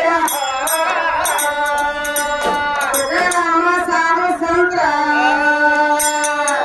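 Gigi pada folk song: a woman singing long held, sliding notes, with small hand cymbals clinking in a steady beat behind her.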